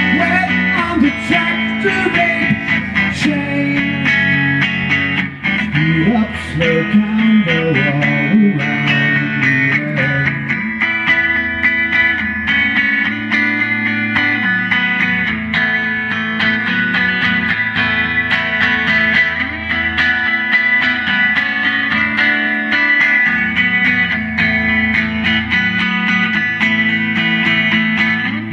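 Guitar music: an instrumental stretch of a song, with gliding, bent lead notes over held chords in the first ten seconds or so, then steadier chords.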